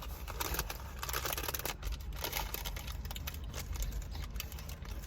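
A person chewing and eating food, with irregular small clicks and crackles.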